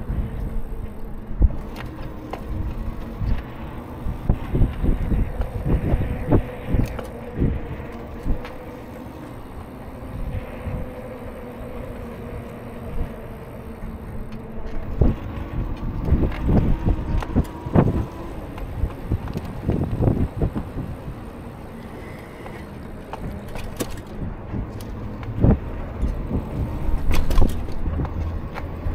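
Wind buffeting the uncovered microphone of an action camera on a moving bike, in irregular low gusts and thumps, over road noise and a faint steady whine that drifts and rises in pitch partway through.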